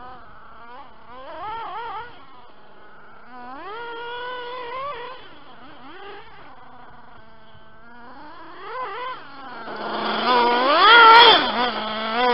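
Reely Rex RC buggy's nitro engine revving in short throttle bursts, the pitch climbing and dropping back to idle between them. The bursts grow louder and longer near the end.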